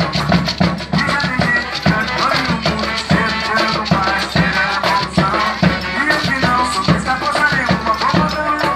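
Coco music: a quick steady beat of drums and a shaker, with voices singing over it.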